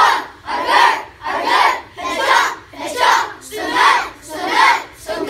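A large group of children, taekwondo students, shouting together in unison with each punch of a drill, about four shouts every three seconds in a steady rhythm.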